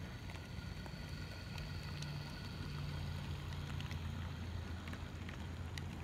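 HO scale brass model train running past on metal track: the Illinois Terminal Class C electric locomotive, re-motored with a Canon EN22 motor driving worm shafts through spring belts, followed by freight cars. A steady low rumble of wheels on rail with scattered light clicks as wheels cross the turnout and rail joints, and a faint high motor whine that fades after about three seconds as the locomotive moves on.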